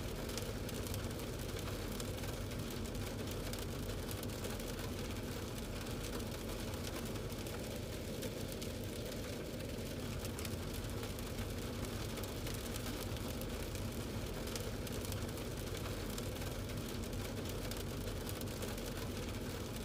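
Steady vehicle noise on a highway: a low engine hum under an even rush of road and tyre noise, with no sudden impacts.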